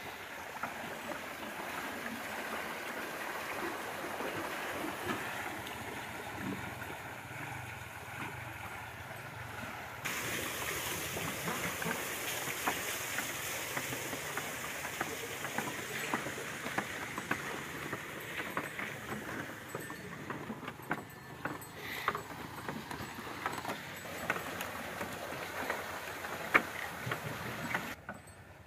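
Bull-driven Persian wheel lifting well water: a steady rush of spilling water with the wooden gearing knocking and clacking as it turns. From about ten seconds in it is louder and brighter, with frequent sharp knocks.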